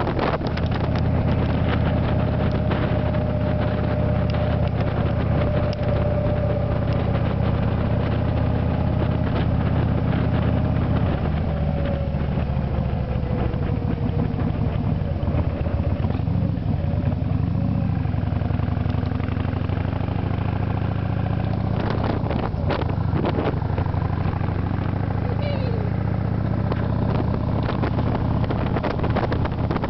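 Motorcycle engine running at road speed, with its note easing slowly downward in the middle, and wind buffeting the microphone on the moving bike.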